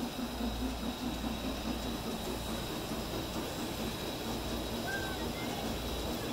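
G-scale model train running along its track: a steady rumble with a fast rhythmic clatter, over a constant thin high whine. A short chirp sounds about five seconds in.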